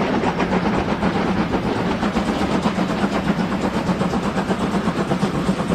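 Steam locomotives running under power: a rapid, even beat of exhaust chuffs over a steady rush of steam.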